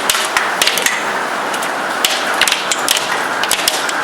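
Hailstones pelting hard surfaces in a dense, irregular clatter of sharp cracks over the steady rushing noise of the storm.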